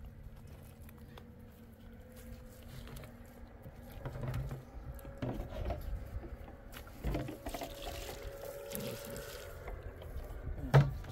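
Wet cement mortar being slapped and smeared by gloved hands onto a concrete block wall: scattered wet dabs and scrapes that get busier after a few seconds, with one sharp knock near the end.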